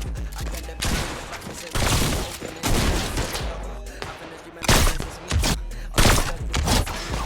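Hip hop beat with a deep, sustained bass line, cut through by a series of short, loud noise bursts about every half second to a second.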